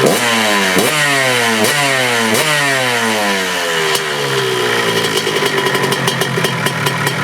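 Freshly rebuilt big-bore Honda two-stroke dirt bike engine being blipped, four quick throttle stabs in the first few seconds with the revs falling back after each, then settling to a steady idle.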